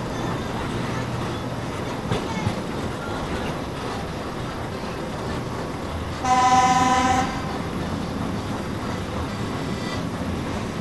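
A train running steadily, with one short blast of its signal horn or whistle, about a second long, a little after the middle.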